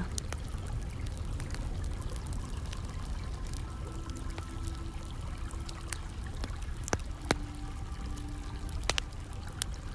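Hot-spring water pouring and trickling steadily into an open-air bath, with scattered sharp crackles of a wood fire.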